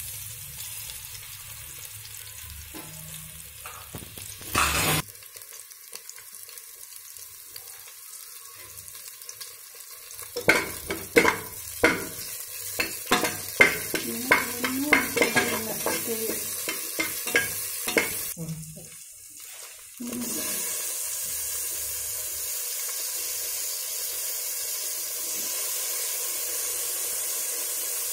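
Onions, green chillies and leaves sizzling in hot oil in an aluminium pot, stirred with a metal spatula that scrapes and clicks against the pan bottom in a quick run of strokes about halfway through. After a brief dip the sizzle comes back louder and steady.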